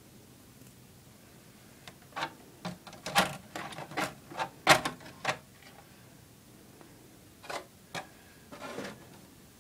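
A hand handling the plastic body shell of an RC monster truck makes a run of irregular clicks and light knocks, several in quick succession around the middle and a few more near the end.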